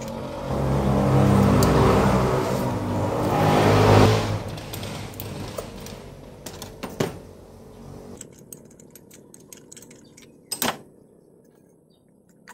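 A motor vehicle's engine passing close by, growing louder to a peak about four seconds in and then fading away. A few sharp clicks follow, the loudest near the end.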